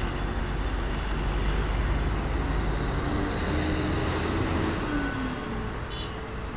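City bus driving past close by: a low engine rumble with a whine that slides down in pitch as it pulls away, over steady traffic noise.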